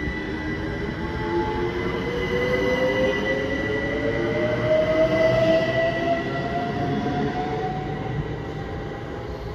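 Class 387 electric multiple unit pulling away, its traction motor whine rising steadily in pitch as it accelerates. A steady high whine sits above it and the running rumble of the train lies beneath, loudest about halfway through and fading toward the end.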